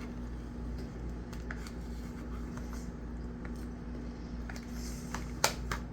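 Scattered light clicks and taps of small objects being handled over a steady low hum, with two sharper clicks near the end.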